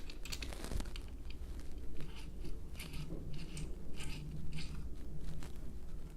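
Allen wrench turning a bolt into a T-nut in an aluminium extrusion: a string of short, crisp metal scrapes and clicks, about two a second, as the bolt is tightened and the key is repositioned.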